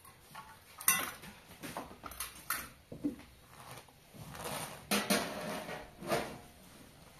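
Cookware and utensils clinking and knocking: a string of separate sharp clatters, the loudest about a second in.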